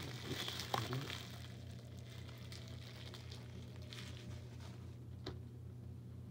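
Faint handling of a Blu-ray case and its plastic packaging: scattered light clicks and rustles, mostly in the first second and again a few seconds later, over a steady low hum.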